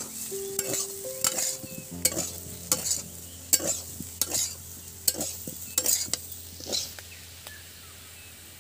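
Spatula stirring and scraping potatoes in a frying pan, about a dozen strokes at one to two a second, over a light sizzle of the jeera aloo frying; the stirring stops about seven seconds in.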